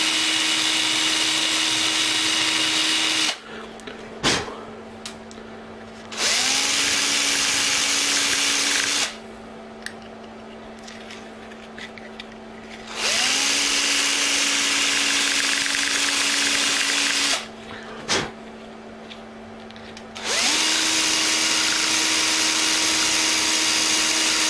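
Electric drill run in four bursts of a few seconds each, spinning up at the start of each, its bit enlarging the motor-screw holes in a black plastic jet-pump part. Between bursts it drops to a quieter steady hum.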